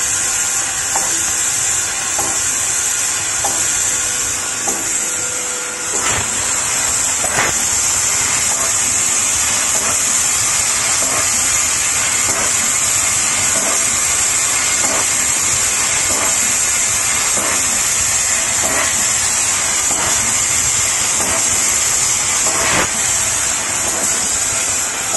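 Leapion T8000 fiber laser tube cutter cutting 1 mm stainless steel round tube: a steady, high-pitched hiss of gas blowing from the cutting head, a little louder from about six seconds in, with occasional sharp ticks from the machine.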